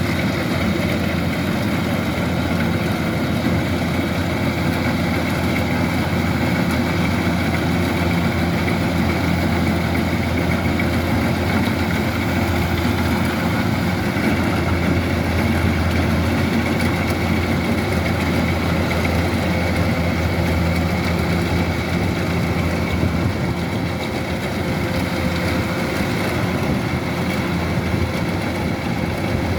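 Kubota DC-105X combine harvester's diesel engine running steadily, a constant low drone with no change in speed.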